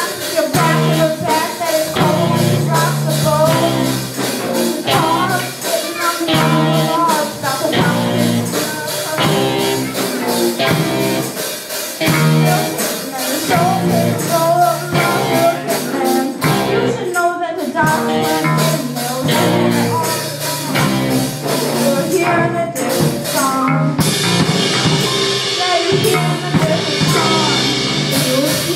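Children's rock band playing live: electric guitars, electric bass and drum kit, with a boy singing over a steady driving beat. Cymbals ring more steadily over the last few seconds.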